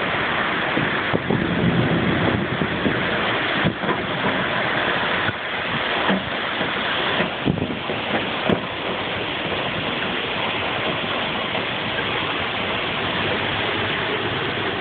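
Storm rain and wind sweeping a yacht's deck: a steady loud rush, with a few sharp knocks in the first half.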